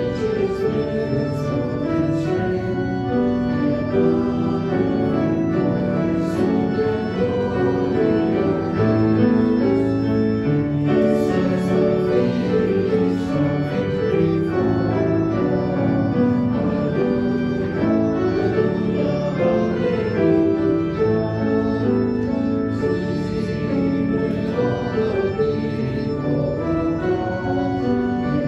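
Organ playing slow music of sustained chords that change every second or so.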